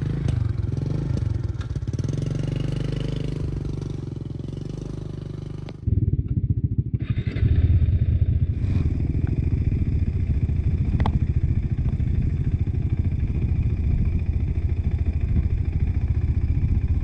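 Motorcycle engine running as the bike is ridden. About six seconds in the sound changes abruptly to a louder, rougher pulsing run that then holds steady.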